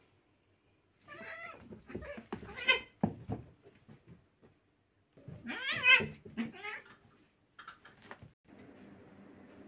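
Two domestic cats facing off, yowling at each other in two long wavering cries during a play-fight, with a few knocks from the scuffle.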